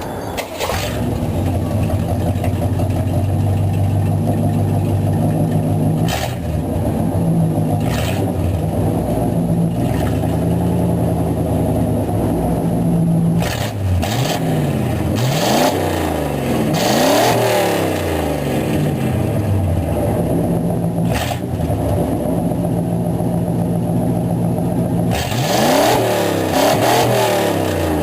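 The exhaust of a 1985 GMC C10's 305 small-block Chevy V8, with no catalytic converter, idling steadily and then blipped: the revs rise and fall a few times around the middle and again near the end, dropping back to idle each time.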